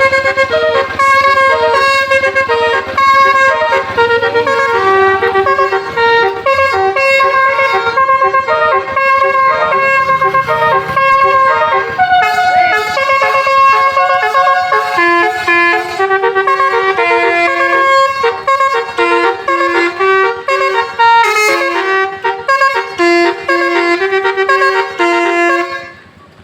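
A tour bus's 'telolet basuri' multi-tone horn playing a fast melody, its notes stepping up and down several times a second, cutting off just before the end.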